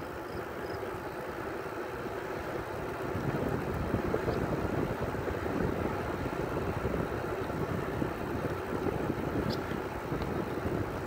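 Wind buffeting the microphone of a moving bicycle, over the rolling noise of the bike on asphalt: a steady, rumbling rush that grows a little louder about three seconds in.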